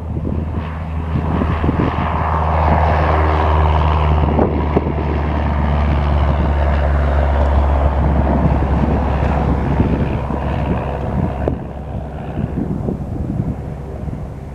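Cessna 172R Skyhawk's four-cylinder Lycoming engine and fixed-pitch propeller at takeoff power: a steady low drone that swells, then fades after about eleven seconds as the plane moves off. Wind buffets the microphone.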